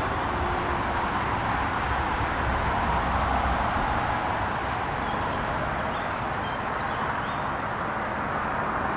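Outdoor ambience: a steady rushing background noise with a few short, high bird chirps scattered through it.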